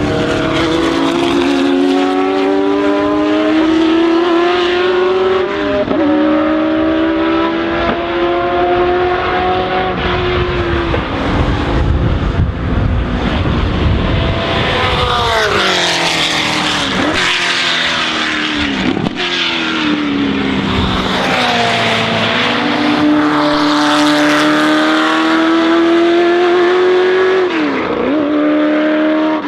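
Ford GT40's 7.0-litre V8 racing engine running hard and loud, its pitch climbing steadily under acceleration and dropping suddenly at several gear changes, with a falling stretch about halfway through as the driver lifts off.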